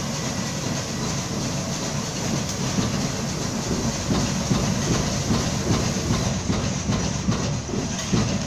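Automatic through-hole component insertion machine running: a steady mechanical clatter of its insertion heads and board conveyor. Rapid knocks grow more frequent and louder from about four seconds in.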